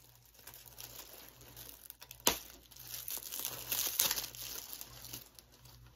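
Plastic packaging on a disc case being crinkled and torn open, with one sharp click a little past two seconds in and louder crinkling a second later.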